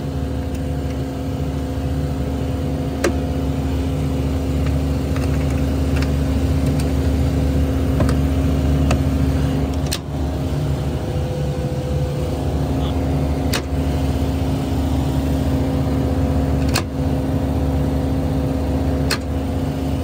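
Refrigeration condensing units for a walk-in freezer running with a steady hum, with a few sharp clicks scattered through.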